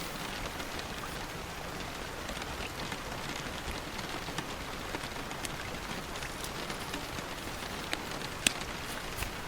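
Steady rain falling, with scattered sharp drip ticks over the even hiss and one louder tick near the end.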